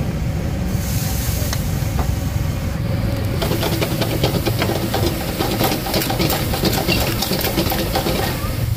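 Clams stir-frying in chili paste in a hot wok, sizzling over a wok burner's steady low rumble. From about three and a half seconds in there is dense crackling and clicking from the frying and the metal ladle stirring.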